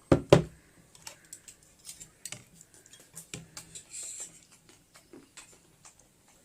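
Dishes and cutlery handled on a table: two sharp knocks right at the start, then a scatter of light clicks and taps.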